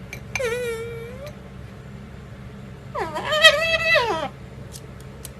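A parrot giving two drawn-out, wailing calls: a shorter one that holds its pitch and then rises near the end, and a louder, longer one that rises, holds and falls. Faint sharp ticks follow near the end.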